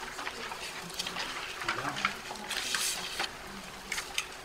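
Meeting-room handling noise: papers rustling and small scattered knocks and clicks at a conference table, with a longer burst of rustling about two and a half seconds in.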